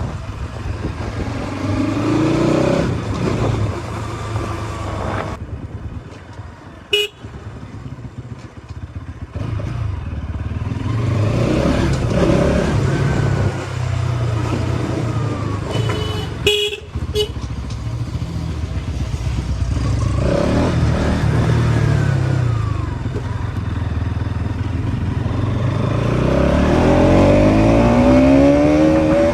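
Bajaj Pulsar NS200's single-cylinder engine on the move, its pitch rising again and again as it accelerates through the gears, and dropping off for a few seconds in between. Short horn toots sound at about 7 s and twice around 16–17 s.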